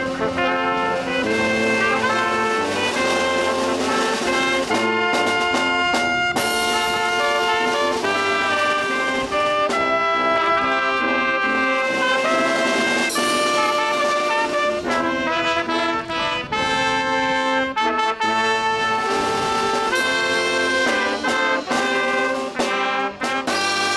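Brass music playing continuously, with held melodic notes that sound like trumpets and trombones.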